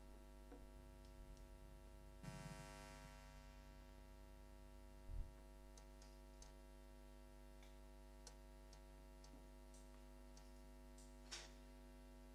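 Near silence: a steady electrical mains hum with a few faint clicks, a soft rustle about two seconds in and a brief low thump about five seconds in.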